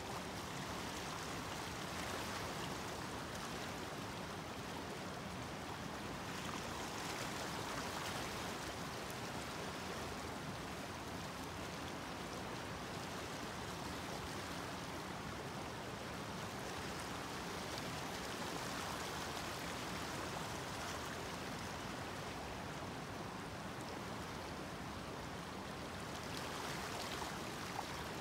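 Fast, shallow stream rushing steadily over its riffles.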